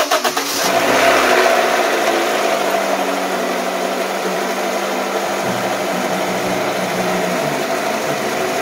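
1999 Honda CR-V's 2.0-litre four-cylinder engine, its cylinder head freshly rebuilt, cranking briefly and catching about a second in, then running at a steady idle that eases down slightly. It is a cold start after a second valve adjustment.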